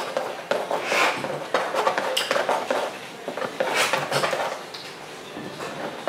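Steel palette knife scraping and tapping through thick oil paint in a few separate strokes, a second or two apart.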